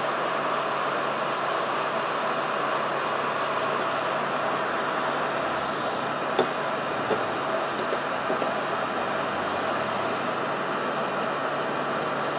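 Heat gun blowing steadily, a constant fan-and-air rush as it heats the aluminium case of a nitro RC engine to loosen the bearing. A few light knocks come in the middle as the hot engine block is handled with an oven mitt.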